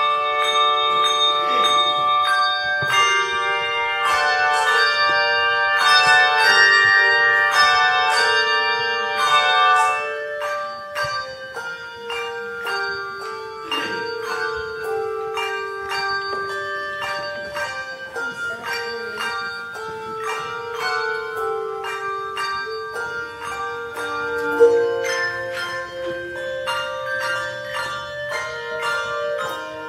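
Handbell choir ringing a tune in many overlapping, ringing notes, fuller and louder for the first ten seconds or so, then softer with fewer notes at a time.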